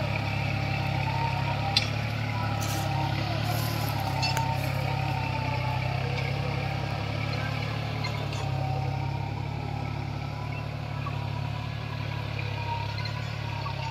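New Holland 4710 tractor's 47 hp diesel engine running steadily under load as it pulls a mouldboard plough through the soil.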